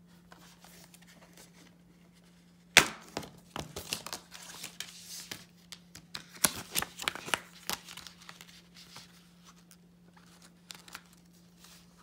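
Plastic Blu-ray case snapping open with one sharp click about three seconds in, then a run of small plastic clicks and paper crackling as the case and its paper insert are handled. A steady low hum sits underneath.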